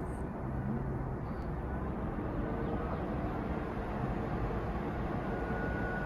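A 2021 Tesla Model 3 SR+ heat-pump compressor trying to start in the cold: a steady low mechanical hum, with a faint high whine coming in near the end. The heat pump has had its compressor, supermanifold and lines replaced and is still failing to start cleanly in cold weather.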